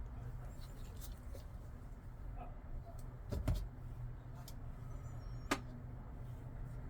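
A few short, sharp clicks and taps of folding knives being handled and set down, scattered over several seconds, the sharpest about five and a half seconds in, over a faint steady low hum.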